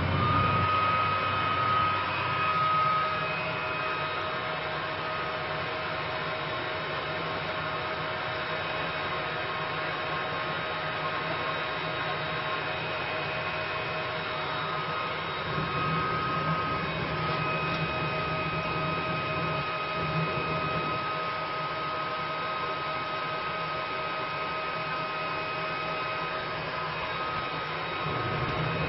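Fume extractor fan running steadily, a constant rush of air drawn in through the suction hose, with a high steady whine that drops out for a while and then comes back.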